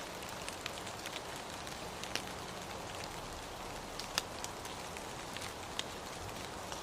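Steady rain hiss with scattered sharper drop ticks, a few of them louder.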